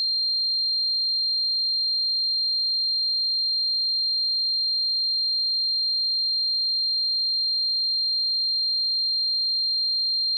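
Simulated tinnitus: a steady, unbroken high-pitched ringing tone, a single pure tone with a faint higher overtone, held at an even level.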